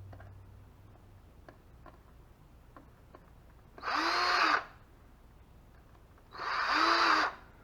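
Power drill driving screws in two short bursts of about a second each, the motor pitch rising and then falling in each, with a few light clicks of handling between.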